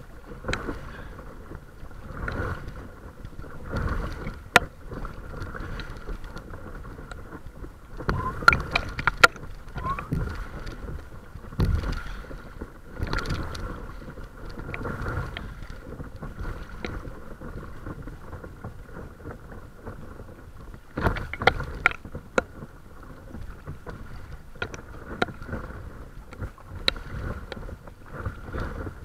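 Paddle strokes in the water and small waves lapping and splashing at the bow of a paddle craft, swelling every second or two, with scattered sharp clicks.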